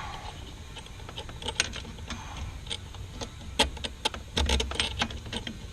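Irregular sharp metallic clicks and clinks from handling a steel bolt and hand tools. They come closer together a little after three and a half seconds in.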